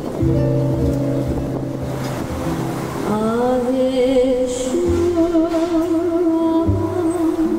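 Live Hawaiian song on two ukuleles and an acoustic guitar, played through PA speakers. About three seconds in, a woman's voice enters, sliding up into a long, wavering note.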